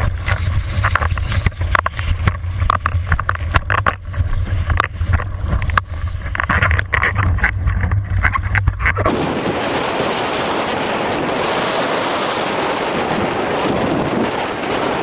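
Wind buffeting and water spray on a boom-mounted GoPro in its waterproof housing as a windsurf board planes over chop: a deep rumble with many sharp knocks from spray and slaps. About nine seconds in it gives way to steady wind noise on a camera microphone.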